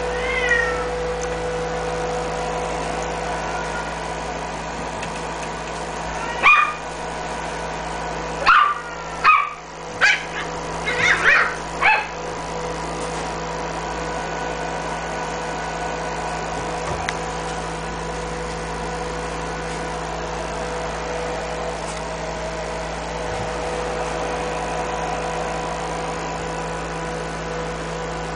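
A puppy gives a string of short, high yips and barks, about seven of them, between about six and twelve seconds in, with one short rising yip right at the start. A steady hum runs underneath.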